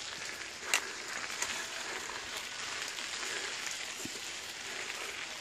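Steady crackling hiss of mountain bike tyres rolling up a dirt fire road on a climb, with a sharp click about three quarters of a second in.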